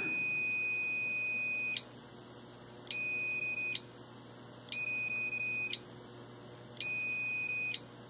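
Multimeter continuity tester beeping, four steady high-pitched tones of about a second each separated by gaps of about a second. The tone sounds while the reed switch's normally closed contacts are closed and cuts out each time the magnet pulls them open.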